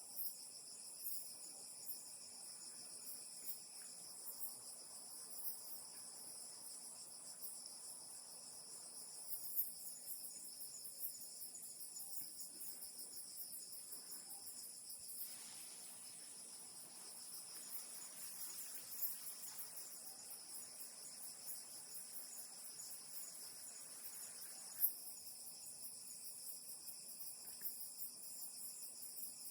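Insects chirring steadily: several high-pitched trills layered without a break, with a couple of short ticks.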